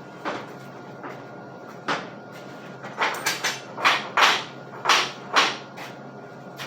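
Irregular knocks and taps, about a dozen spread unevenly and loudest around the middle, over a steady low hum.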